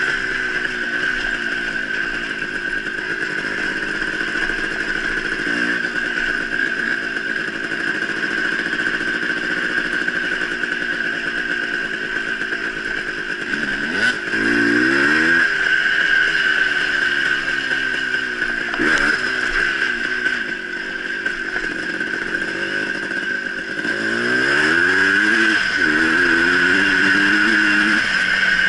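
Dirt bike engine running while ridden on a trail, its pitch rising as it revs up through the gears about halfway through and again near the end.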